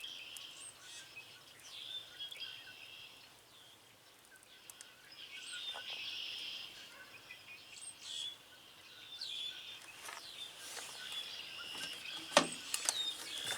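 Birds calling outdoors: short high chirps sweeping downward, repeated every couple of seconds. A few sharp clicks and knocks come near the end.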